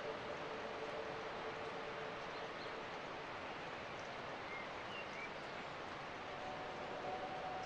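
Countryside outdoor ambience: a steady, even rushing hiss, with a few faint bird chirps about four to five seconds in and a faint steady hum underneath.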